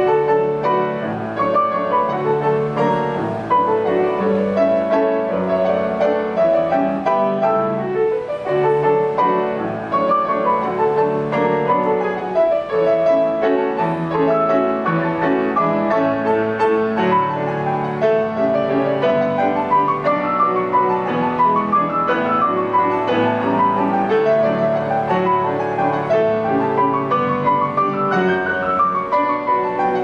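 Grand piano played four hands, a waltz. The playing runs on without a break, with rippling runs rising and falling in the upper notes over a fuller bass.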